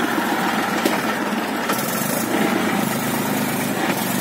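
HMT 3522 tractor's diesel engine running steadily, heard close up from the driver's seat.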